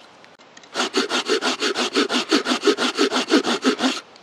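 Folding hand saw cutting across a bark-covered log in rapid, even back-and-forth strokes, the teeth rasping through the wood. The sawing starts about a second in and stops shortly before the end.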